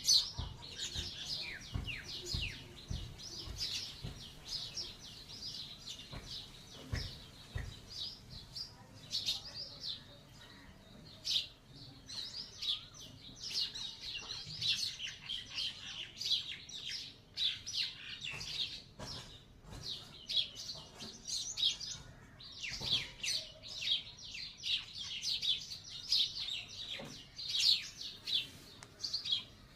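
A flock of small birds chirping together, a dense run of overlapping high chirps with no let-up.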